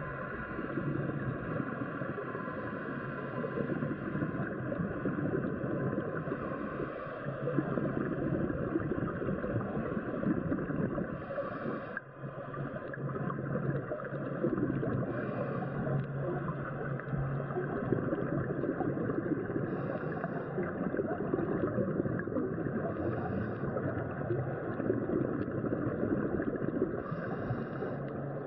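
Underwater scuba-dive ambience: a dense, steady bubbling rush with a short hiss of regulator exhalation bubbles about every four seconds, over a steady low hum that fades out about two thirds of the way through.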